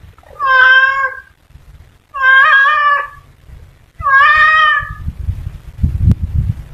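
Domestic cat meowing three times, each call about a second long, with a pause of about a second between them. Low scuffling noise follows, with one sharp click near the end.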